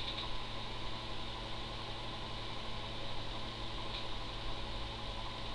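Steady low hum with a faint hiss underneath, unchanging throughout, with a couple of faint ticks.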